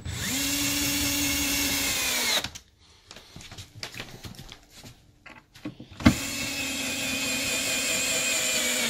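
Cordless drill-driver driving screws that tighten a sofa bed's seat to its frame. There are two runs: the first lasts about two and a half seconds and its pitch drops at the end. A few light knocks follow, then a second run starts with a sharp click about six seconds in.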